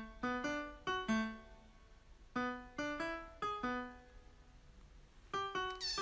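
Background music: a piano melody played as single struck notes, in short phrases with pauses between them.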